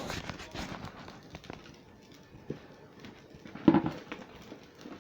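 Scattered knocks and clicks from objects being handled while something is found to prop up the filming tablet. A louder knock comes a little past halfway.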